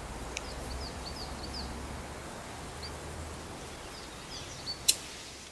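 Outdoor garden ambience with small birds chirping in short, high, falling calls, a run of them early and a few more later, over a steady low hum. A single sharp tap stands out a little before the end.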